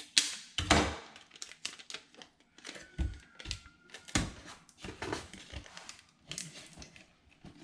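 Packaging tape being pulled off its roll and pressed onto a glued wooden joint: crinkling and tearing with irregular taps and rustles, and a brief thin squeak about three seconds in.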